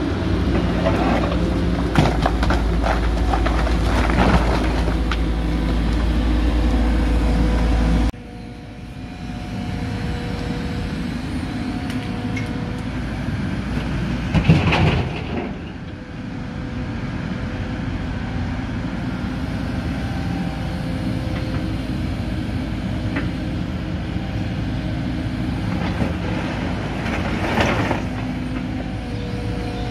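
Caterpillar tracked excavator's diesel engine running as it works on demolition. There are heavy knocks and crashes in the first few seconds, then a steadier engine and hydraulic hum with occasional louder swells.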